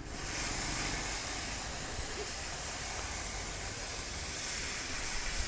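Steam locomotive venting steam with a steady hiss that starts suddenly, as the train gets ready to pull out of the station.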